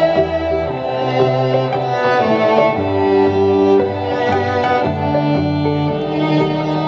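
Live band playing an instrumental passage led by bowed violin, with held notes changing every second or so over sustained low bass notes.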